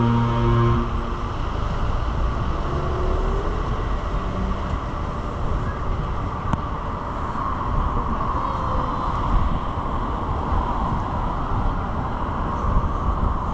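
A ship's horn sounding one steady low note that cuts off about a second in, followed by a steady low rumble.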